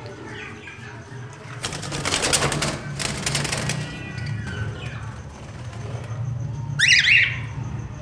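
A cockatiel flapping its wings in a rapid burst lasting about two seconds, then a short, quick string of sharp chirps near the end, over a low steady hum.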